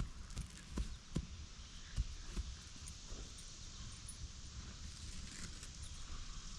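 Footsteps on loose soil: several dull thumps in the first couple of seconds, then quieter steady outdoor noise.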